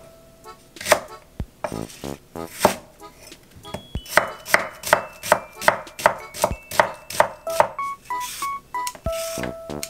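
Rectangular vegetable knife chopping on an end-grain wooden cutting board: a few separate cuts through green onion, then about a second in from the middle a quick, even run of slicing strokes through an onion, about three a second. Soft background music with held notes plays underneath.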